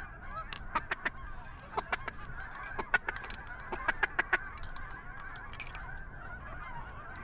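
A large flock of geese honking continuously in a dense, overlapping chatter, with a run of sharper, louder notes between about one and four and a half seconds in.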